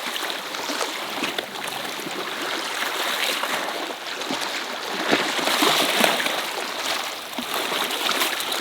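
Water rushing and splashing in an uneven wash that swells and falls, with a loud surge about five to six seconds in.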